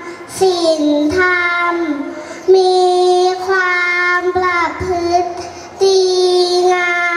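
Young girl singing into a handheld microphone: slow phrases of long held notes, with short breaks between the phrases.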